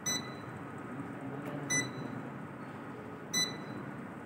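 Short electronic beep repeating about every one and a half seconds, three times, over steady room noise.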